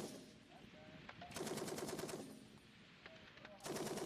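M60 7.62 mm machine gun firing short bursts of about six to nine rounds. The end of one burst comes right at the start, a full burst of under a second comes about a second and a half in, and another begins near the end.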